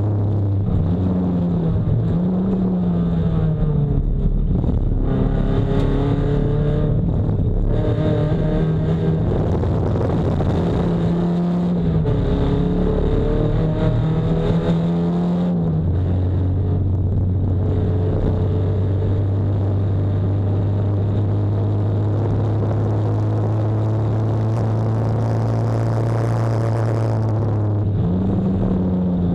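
Nissan 240SX race car's engine under racing load, its pitch climbing and dropping repeatedly through gear changes for the first half. It then holds one low, steady pitch for about twelve seconds before jumping sharply higher near the end.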